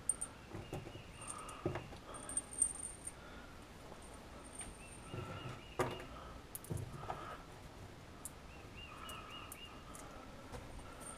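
Small metal hardware (bolts, nuts and small tools) clinking and rattling while being handled on a wooden workbench, with scattered light knocks.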